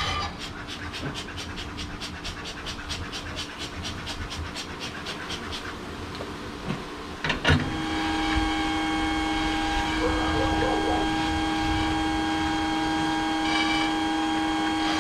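Rapid, even clicking, about five a second, fading away over the first half. About seven and a half seconds in, a click and a bee vacuum's motor switches on and runs with a steady hum.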